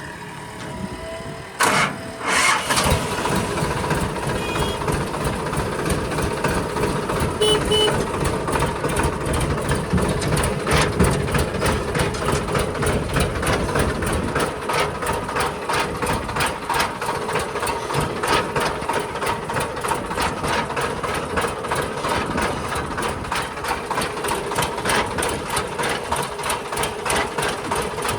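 A diesel engine, quieter at first, becomes loud suddenly about two seconds in and then runs steadily with a fast rhythmic clatter.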